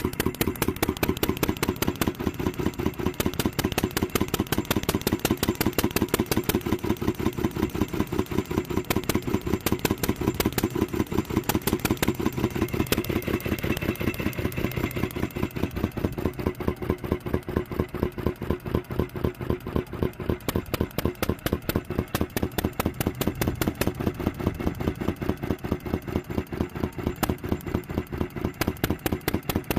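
IHC Mogul 1 hp hit-and-miss gas engine running with a rapid, even clatter of firing and valve gear. It runs way too fast and not very well.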